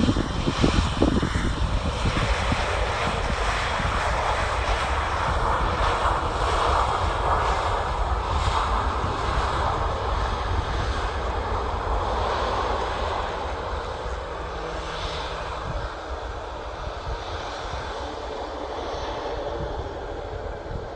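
Airliner engines passing at an airport. The engine noise is loudest in the first half and fades away over the last several seconds.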